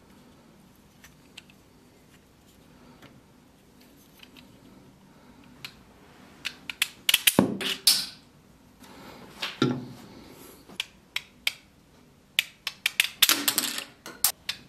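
Hard plastic clicks and clacks from a 3D-printed rubber-band disc shooter being handled and worked: a few faint clicks at first, then quick clusters of loud snapping clicks about halfway through and again near the end.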